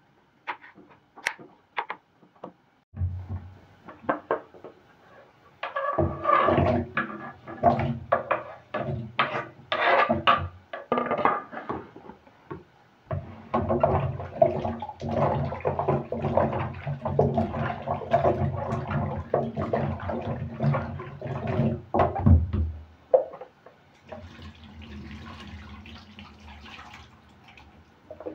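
A few sharp knife taps on a bamboo cutting board, then tap water running into a stainless steel sink and a glass bowl as cut arrowroot pieces are rinsed by hand. The water stops about 23 seconds in, leaving faint splashing.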